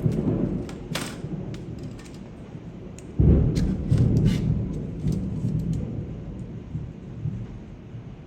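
Rumble of thunder from a rain-and-thunder ambience track: a low roll breaks out about three seconds in and slowly fades over steady rain hiss. Scattered sharp clicks sit on top.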